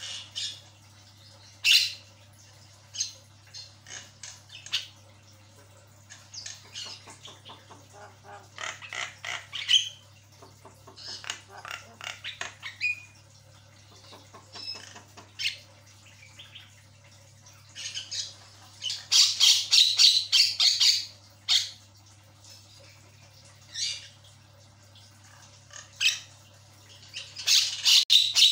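Javan myna chattering in irregular bursts of harsh squawks and rattling notes, with the densest, loudest burst about two-thirds of the way in and another near the end.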